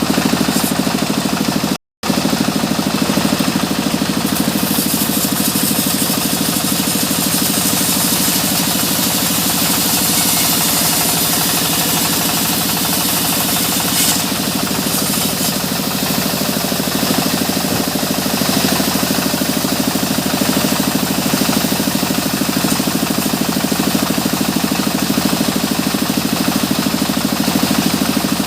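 Sawmill machinery running steadily: the drone of the engine driving the saw with a hissing noise over it. The sound cuts out for an instant about two seconds in.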